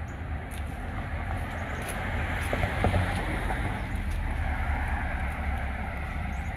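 Outdoor street ambience while walking: wind rumbling on the microphone under a rushing hiss that swells and fades about two to five seconds in.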